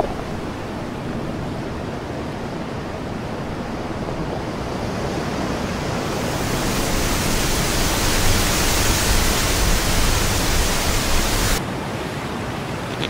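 Steady rushing noise, like surf or wind, that swells louder and brighter from about halfway through and then cuts off abruptly near the end.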